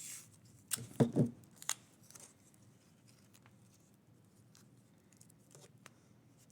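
Sticky tape being pulled off and torn, a few sharp rips in the first two seconds, followed by faint crinkles and ticks of tape and foil being handled.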